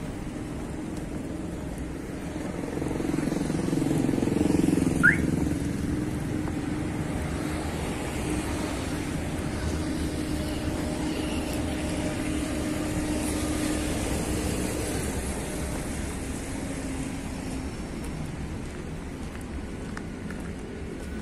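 Street traffic: passing cars and engines making a continuous noise that swells about four seconds in and fades away again. A brief rising squeak cuts through about five seconds in.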